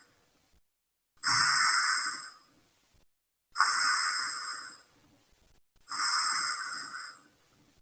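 Snoring: three long rasping, hissing breaths about two seconds apart, each starting suddenly and fading away.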